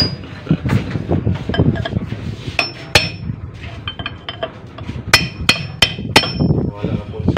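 Hammer striking a steel bar used as a drift against a water pump's shaft assembly, to tap parts home during reassembly. Sharp, ringing metal-on-metal strikes: two about three seconds in, then a quick run of four near the end.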